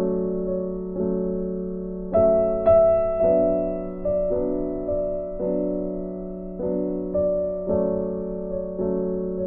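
Background music: slow piano chords, each struck and left to fade before the next.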